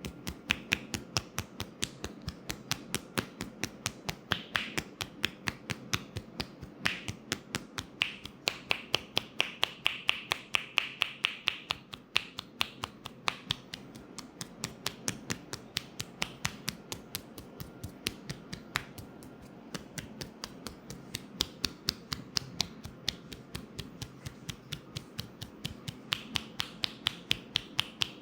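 Rapid, sharp hand clicks and taps of a percussive head massage, in an even rhythm of about three to four a second.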